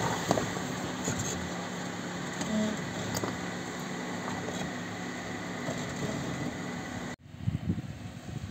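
Suzuki Grand Vitara engine running steadily at low revs as the SUV crawls over rocks. About seven seconds in it cuts off abruptly, replaced by an irregular low rumble.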